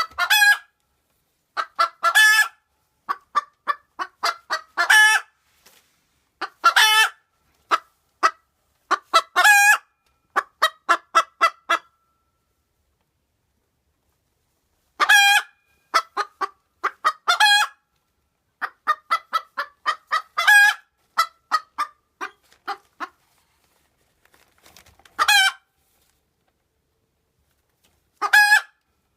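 Cochin bantam hen's egg song just after laying: runs of short clucks, each run ending in a loud drawn-out squawk, repeated again and again with a pause of a few seconds about halfway through.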